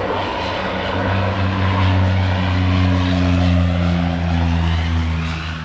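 Propeller plane's engine running with a steady, loud drone, its pitch holding level, arriving with guests.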